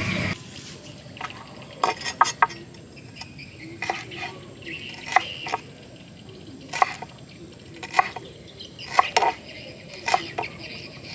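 Cleaver chopping garlic and spring onion on a wooden cutting board: sharp irregular knocks of the blade hitting the board, often in pairs, about one or two a second from about two seconds in.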